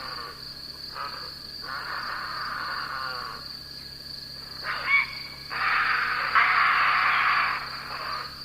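Night chorus of wild animals: a steady high insect trill runs underneath, while harsh, buzzy animal calls come in bursts of about a second with short gaps. A brief gliding call comes near the middle, and the longest, loudest call comes in the second half.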